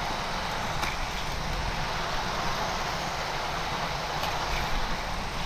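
Hot Wheels die-cast cars rolling along orange plastic track, with the track's powered boosters whirring: a steady rolling rumble with a few faint clicks.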